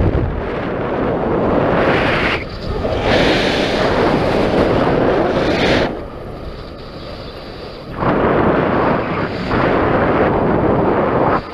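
Wind buffeting the microphone in three long, loud surges that start and stop abruptly, with a quieter rush of air between them.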